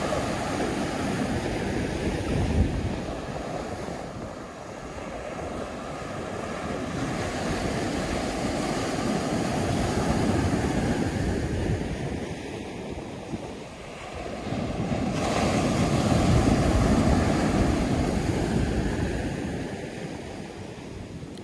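Sea surf breaking on a sandy beach, the waves rushing in and washing up the shore in slow swells that rise and fall. Wind gusts on the microphone add a low rumble.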